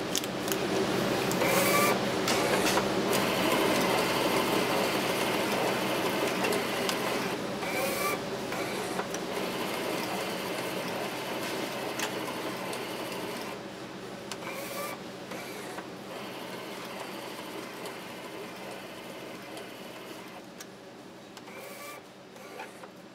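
Electric cigarette-filling machine running through repeated fill cycles: a steady mechanical whirring with clicks and a short squeak recurring about every six to seven seconds as each tube is filled and released, four times in all. The sound grows gradually quieter.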